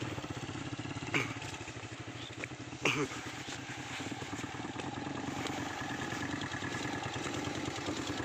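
Motorcycle engine running steadily, with two short sharp sounds about one and three seconds in.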